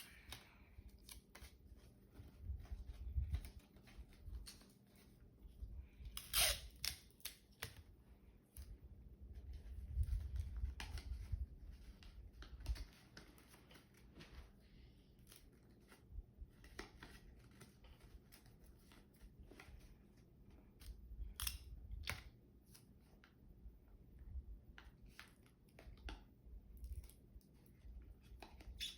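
Paper and tape being handled while a sheet of paper is fitted and taped over a homemade rice shaker: scattered snips, crinkles and light taps, with a few soft thumps.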